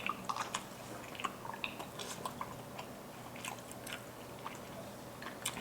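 Close-miked chewing of a cheese corn dog: a run of small mouth clicks and smacks as the food is chewed.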